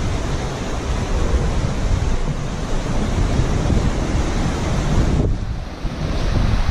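Sea surf churning against the rocks below a cliff, mixed with wind rumbling on the microphone. The sound is a loud, steady roar. About five seconds in, the higher hiss drops away abruptly.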